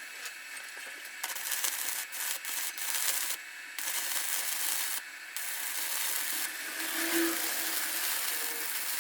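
Abrasive rubbing on a workpiece, a steady hiss that breaks off briefly twice.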